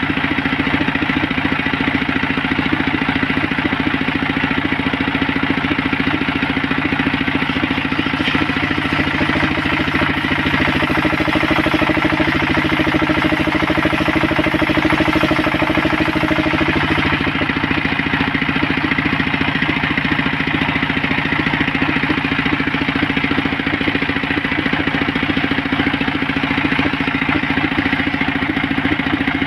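Engine-driven homemade circular saw bench running steadily with its engine chugging. From about eight to seventeen seconds in, the blade rips lengthwise through a coconut-wood plank and the sound thickens under load before easing back to the free-running drone.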